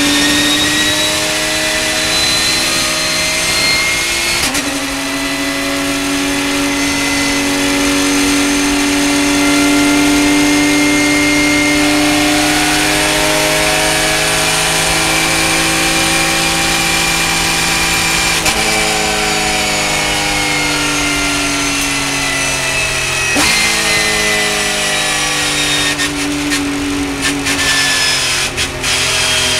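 A Porsche race car's engine heard from inside the cockpit at high revs. The pitch climbs, drops sharply on an upshift about four seconds in, then climbs again and holds high. Later the revs fall as the car slows, with a jump in pitch on a downshift about two-thirds of the way through and a run of clicks and knocks near the end.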